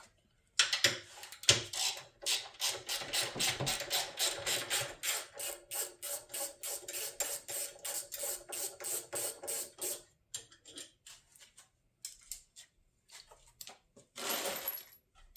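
Hand ratchet clicking steadily, about five clicks a second, as a bolt is wound out. It stops about two-thirds of the way through, followed by a few loose clicks and a short scraping rustle near the end.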